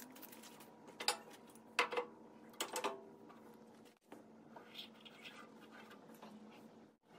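Pencil scratching layout lines onto a mahogany lathe blank, with three louder sharp strokes in the first three seconds and softer scratching later, over a faint steady hum.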